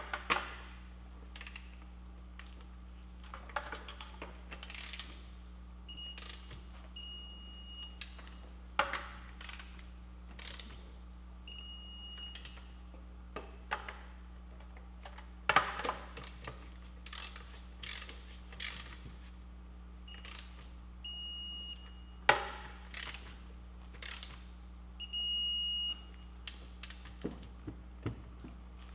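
Digital torque wrench ratcheting wheel lug nuts tight, with scattered clicks and a few sharp knocks, and short high beeps about four times as the set torque of 100 foot-pounds is reached. A steady low hum runs underneath.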